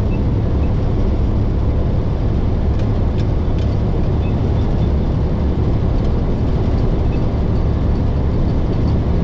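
Heavy diesel engine running steadily, a low rumble with a few faint ticks about three seconds in.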